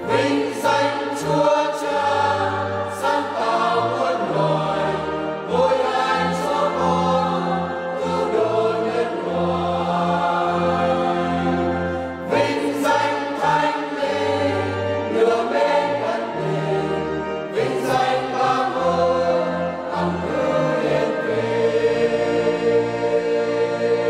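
Mixed choir of women and men singing a Vietnamese Catholic hymn together in harmony, over held low accompaniment notes.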